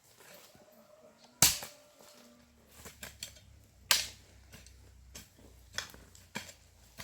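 Irregular sharp blows on wood: two loud strikes, about a second and a half and four seconds in, with lighter knocks scattered between and after.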